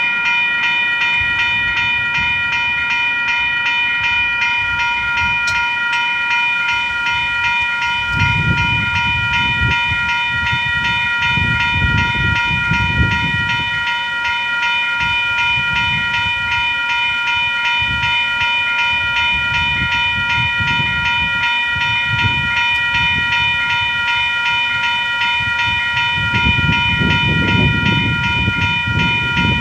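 Railway level crossing warning bell ringing continuously, a rapid, even series of bright tones that signals a train is approaching. A low rumbling noise swells about eight seconds in and again near the end.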